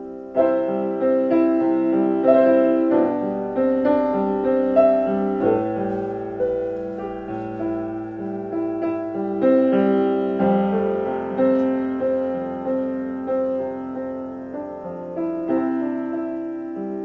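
Solo piano playing: chords and melody notes struck and left to ring, with a loud chord about half a second in and a new note every half second or so.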